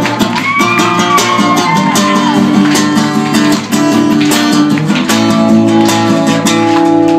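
Acoustic guitar strummed live in a steady rhythm, ringing chords playing out the song's closing bars.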